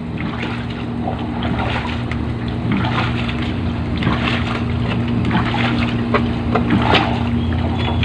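An engine running steadily with an even hum, under scattered light clatter.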